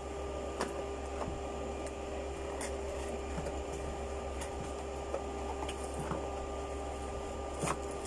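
A steady machine hum, with faint scattered taps and rustles as a computer mouse and its small cardboard box are unpacked by hand.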